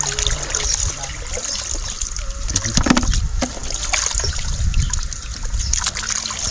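Water from a garden hose trickling and splashing into a basin as mussels are rubbed and rinsed by hand, with scattered sharp clicks.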